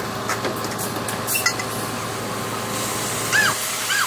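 Ready-mix concrete truck running steadily as its drum turns and feeds concrete down the chute. Two short, high, arching chirps sound near the end.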